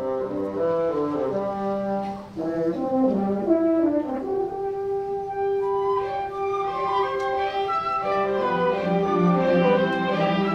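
Orchestral background music: a slow melody of held notes over a fuller orchestral accompaniment.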